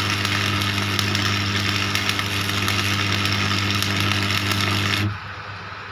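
Electric arc welding on a broken truck spare part: a steady crackle and sizzle over a constant hum that cuts off suddenly about five seconds in as the weld ends.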